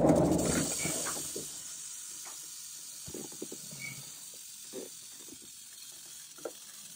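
Rattlesnake rattling its tail: a steady dry buzz, loudest at first and then settling lower. It is the snake's defensive warning, a sign that it is agitated. A bump sounds right at the start.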